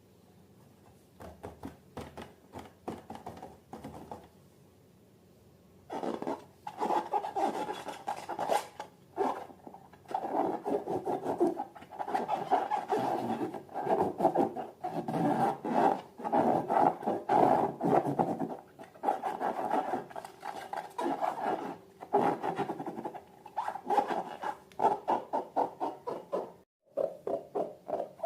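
Balloons and slime being handled and rubbed by hand: a few soft clicks, then from about six seconds in a fast, continuous run of rubbing and squishing strokes.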